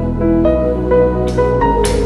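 Background music: melodic notes over a steady bass, with a cymbal-like crash near the end.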